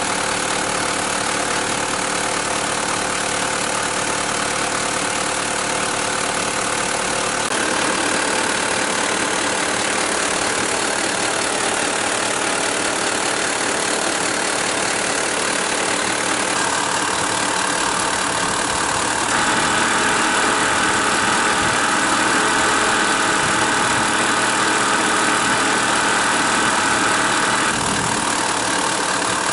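1998 Mitsubishi Pajero Long's engine idling with an abnormal noise from its air-conditioning compressor, which the owner suspects comes from worn compression vanes and main shaft bearing inside the compressor. The sound shifts in tone a few times and is louder for several seconds in the second half.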